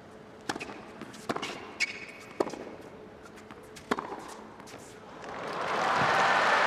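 Tennis rally on a hard court: about five sharp ball strikes and bounces, racket hits crisp against a quiet arena. Near the end the crowd noise swells into applause as the point ends.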